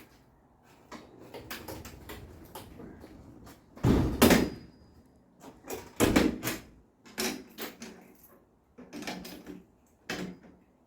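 Irregular clunks and knocks of hard objects being handled and set down, loudest about four and six seconds in.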